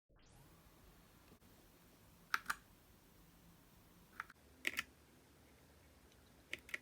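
Keys of a Keychron K4 mechanical keyboard pressed one at a time: a few sharp keystroke clicks, mostly in close pairs, about two seconds apart.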